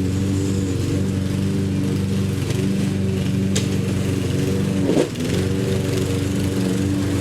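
Petrol lawn mower engine running steadily, with a sharp tick a little past three seconds. About five seconds in, the engine note briefly surges and then dips.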